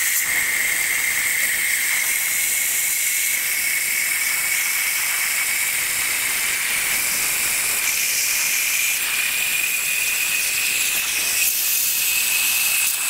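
Garden hose running water into a plastic 55-gallon drum through its top opening: a steady hiss with a thin whistle that creeps slowly up in pitch as the drum fills.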